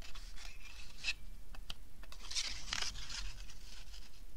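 Cardstock rustling and scraping as it is handled against a paper punch: a handful of short papery scrapes, with a longer pair of them in the middle.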